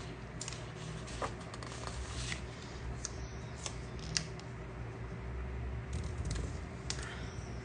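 Paper handling: soft rustles and scrapes with scattered light ticks and taps, as hands shift disc-bound planner pages and press a round paper sticker into place.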